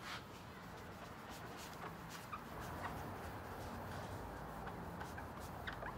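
A foam applicator pad scrubbing polish into a plastic headlight lens by hand, in faint, irregular rubbing strokes.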